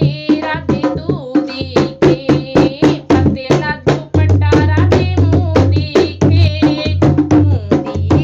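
Dholak played with fast, steady hand strokes under a woman's devotional singing; about four seconds in, the drum's deep bass tone grows stronger.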